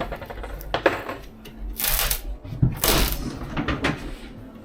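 Irregular knocks, scrapes and rattles of hand work on a camper van's ceiling lining as it is prised loose: a knock about a second in, a scrape around two seconds, and more knocks near three and four seconds.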